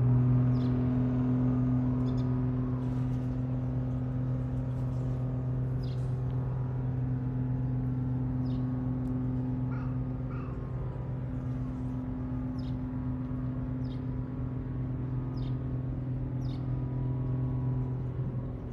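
A steady, even-pitched machine hum, like an engine running at idle, that cuts off shortly before the end, with short high bird chirps now and then over it.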